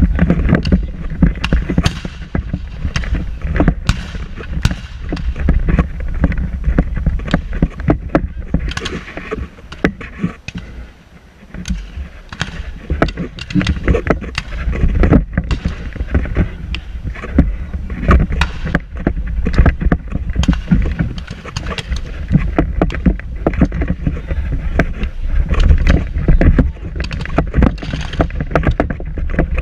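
Wind buffeting the camera microphone: a loud, low rumble with constant irregular crackle that eases briefly about ten seconds in.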